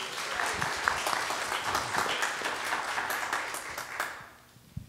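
Congregation applauding, many people clapping at once, dying away about four seconds in.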